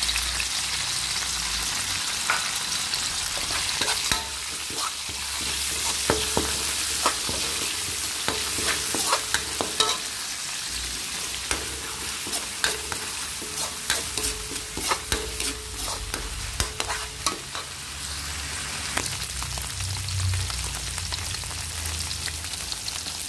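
Diced ham and garlic sizzling in oil in a pan, with a spatula scraping and clacking against the pan at irregular moments as the ham is stir-fried.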